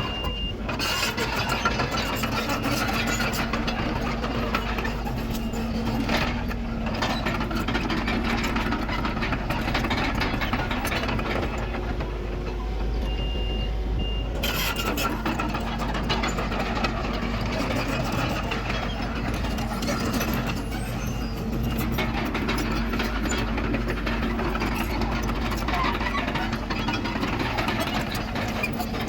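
Diesel engine of heavy earthmoving machinery, the Komatsu D31PX bulldozer at work, running steadily. A reversing alarm gives a short beep at the start and two short beeps about halfway through.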